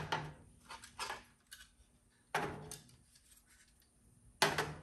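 Stepper motor driver modules and a power supply being set down and shifted inside a metal security box: several clunks and scrapes against the sheet metal, the loudest about two and a half seconds in and near the end.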